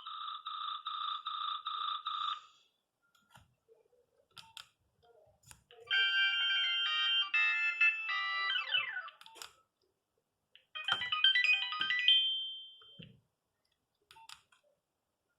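Nokia 3510 mobile phone ringtones played one after another. A pulsing two-tone beeping pattern, about four pulses a second, stops about two seconds in. After a pause comes a short tune of several notes at once ending in a falling run, then a second brief chiming tune, with faint clicks in the gaps.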